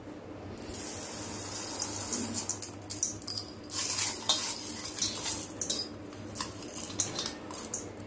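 Dry chana dal poured from a small steel tumbler onto rice and urad dal in a steel bowl: a rattling hiss of falling grains starts under a second in. It is followed by scattered clinks as the steel tumbler is tapped and scraped empty.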